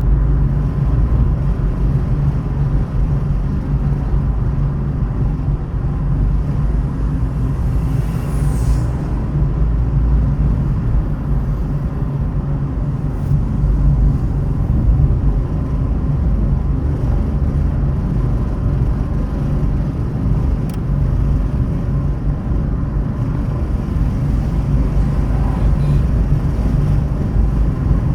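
Steady low rumble of a car driving: engine and tyre noise at a constant level, with a faint steady tone above it.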